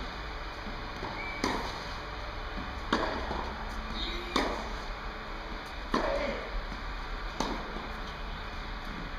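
Tennis racket hitting the ball in a drill: five sharp hits, about one every second and a half.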